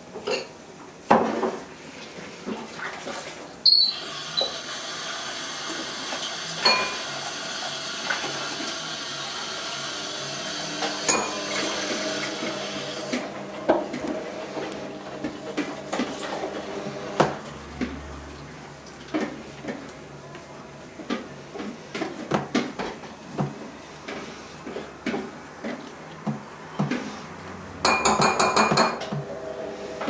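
Cockatiel's beak pecking and tapping at the hard plastic lid of a food tub, irregular sharp taps and clicks, as the bird tries to get inside. Near the end comes a quick rattling flurry of taps.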